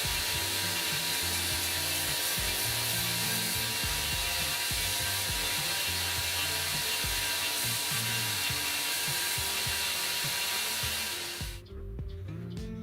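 A steady, harsh rasping noise from a woodworking tool working wood, with background music under it. The tool noise cuts off suddenly near the end, leaving only the music.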